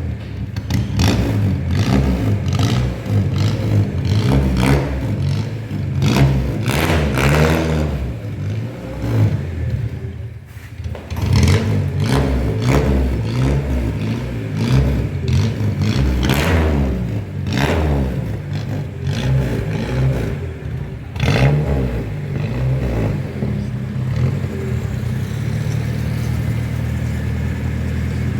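Ford Corcel's four-cylinder engine running as the car is driven, revving up and dropping back several times as it goes through the gears.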